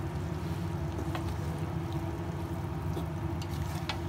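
Wooden spoon stirring minced chicken in a large aluminium pot, with a few light knocks of the spoon against the pot over a steady low rumble.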